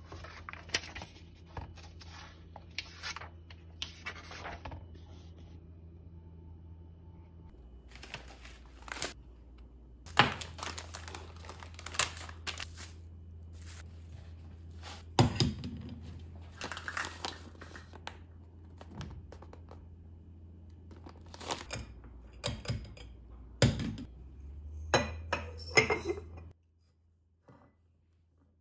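Hands handling food packets and kitchen items on a marble countertop: plastic packaging crinkling and tearing, with a series of taps and knocks as things are set down.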